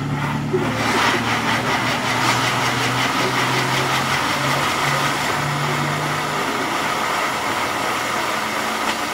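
Castillo firework tower burning: a steady loud hissing and crackling of its fountains and spinning wheels, with a low steady hum underneath.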